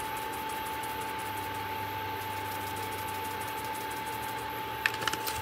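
Portable induction cooktop running under a pan, a steady hum with a constant whine. A few light clicks come near the end.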